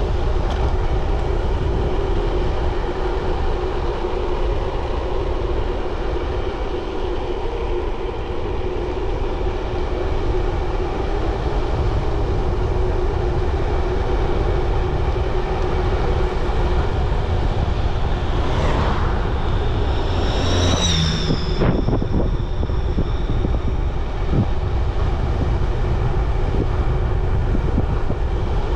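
Steady rumble of wind on the microphone and tyres rolling while riding a bicycle. About two-thirds of the way through, something swells and passes, and a brief high squealing tone follows.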